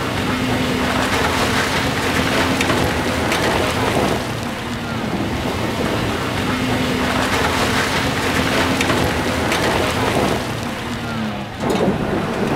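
Off-road SUV driving through a shallow, stony river, its engine running under a steady hiss of splashing water and spray.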